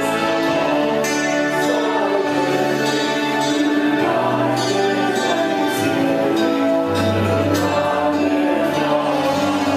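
Music with singing: a worship song, sung over held chords and a bass line.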